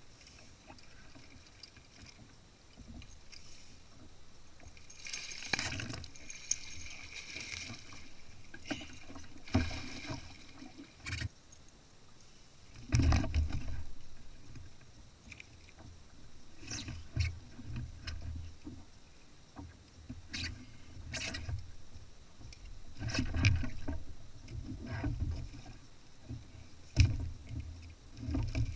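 Fishing gear being handled in a Hobie Pro Angler kayak: irregular knocks, clatter and sharp clicks, with several dull thumps against the plastic hull.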